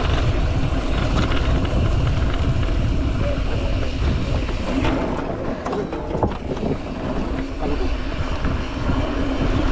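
Wind buffeting the microphone and the rumble of a mountain bike rolling over a dirt trail, steady and loud, easing slightly for a few seconds midway.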